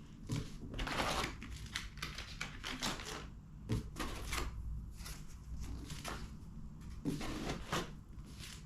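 Irregular clicks, knocks and rustling of packaging as the parts of a 3D printer kit are lifted out of their box and set down.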